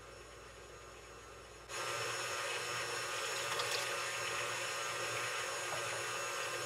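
Electric stand mixer running steadily, its wire whisk beating liquid batter ingredients in a steel bowl: a steady motor hum under a whirring, swishing noise. It comes in abruptly about two seconds in, after faint room hiss.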